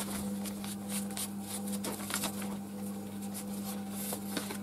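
Paper sewing pattern rustling and crinkling in short, soft bursts as hands smooth and shift it over stretch fabric, over a steady low hum.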